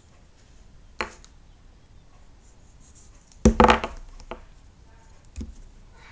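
Handling noises from an air pistol with a pressure gauge: a sharp click about a second in, a loud sharp double knock with a brief ringing tail about halfway, and a softer knock near the end.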